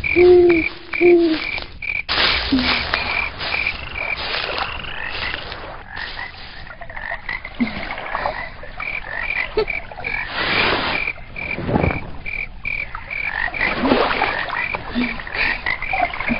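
Night-time pond ambience of frogs croaking, with a high chirp pulsing about four to five times a second. Two low calls come right at the start, and several brief rushing swells of noise rise and fall through the middle.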